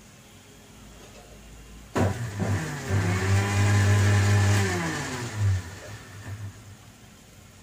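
A motor starts suddenly about two seconds in. Its pitch climbs and holds steady for a couple of seconds, then winds down and fades.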